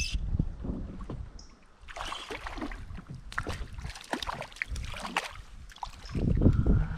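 Wooden paddle stroking through river water, with irregular splashes and drips as the blade dips and lifts. A louder low rumble comes near the end.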